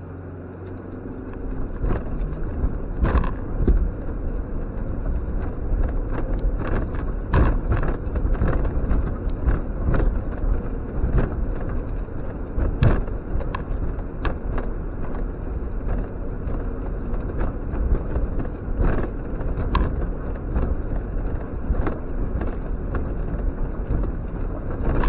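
Suzuki X-90's four-cylinder engine pulling away about a second and a half in and working steadily uphill, heard from inside the cabin. Frequent sharp knocks and bangs come through as the car jolts over the rough, rocky track.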